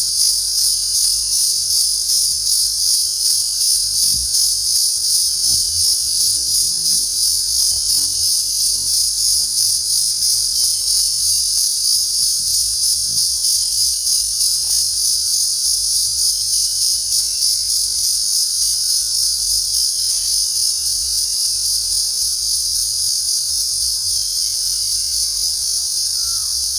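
Singing insects calling: a loud, high-pitched shrill buzz, pulsing steadily a few times a second.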